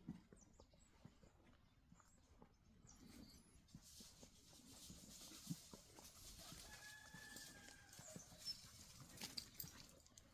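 Faint, thin, high whistle-like whine from a border collie, held for about a second and a half past the middle, over scattered light ticks of paws and a soft rustling hiss.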